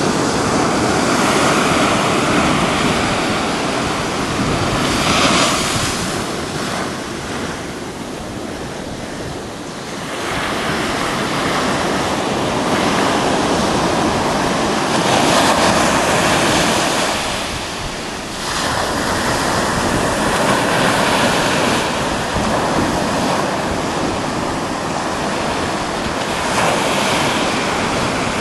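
Pacific surf breaking on a sandy beach and rocks, a steady wash that swells as each wave crashes and eases in short lulls between waves, with wind on the microphone.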